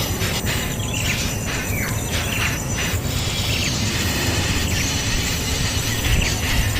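Outdoor ambience: a steady, high insect drone under short, falling bird chirps repeating about once a second, over a low rumble.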